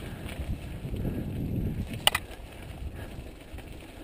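Soft-tail mountain bike rolling down a mountain trail: tyre and rolling noise, stronger in the middle, with a sharp click just after two seconds in.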